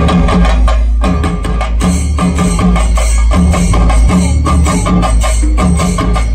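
Fusion singarimelam: Kerala chenda drums and cymbals beating a dense, fast rhythm over amplified music with a heavy, sustained bass.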